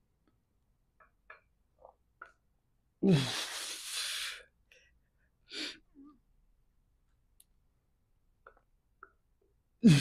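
A man straining through incline dumbbell press reps: a short grunt running into a long, forceful exhale about three seconds in, a shorter breath a couple of seconds later, and another loud grunt and exhale near the end. A few faint clicks come between the breaths.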